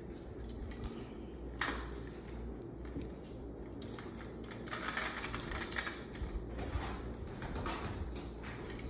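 Light plastic clicks, taps and scratchy rustling from a kitten batting and pawing a plastic cage toy, with one sharper click about a second and a half in and denser rustling in the middle.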